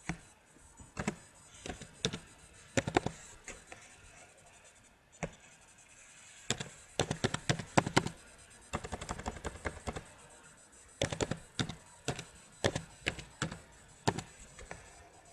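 Computer keyboard keys clicking in irregular bursts of typing, with short pauses between the bursts.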